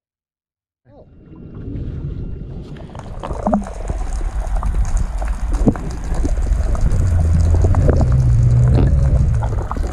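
Muffled underwater sound of water rushing and bubbling around a submerged camera, with scattered clicks and pops. It starts about a second in, and a low rumble grows stronger in the second half.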